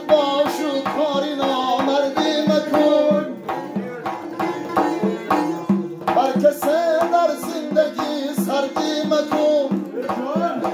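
Live folk music: a large frame drum struck by hand in a steady, driving rhythm, with a plucked long-necked lute. A man's voice sings a phrase at the start, pauses, and sings again from about six seconds in.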